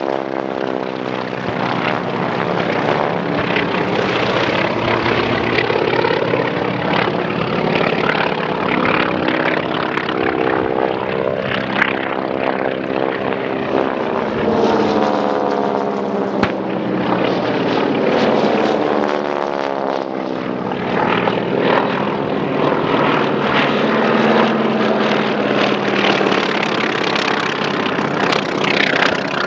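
Several piston-engine propeller planes flying low passes, their engine notes overlapping and sliding down in pitch as each one goes by. A short sharp crack about twelve seconds in.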